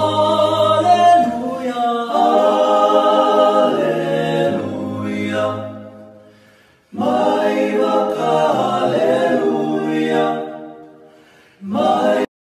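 Male vocal group singing a cappella in close harmony over a low bass part. Two long phrases each swell and then fade away, followed by a short final chord, and the sound cuts off abruptly near the end.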